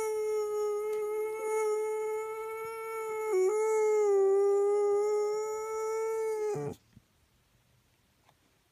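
A dog howling: one long, steady, high-pitched howl that dips briefly partway through and cuts off suddenly about seven seconds in.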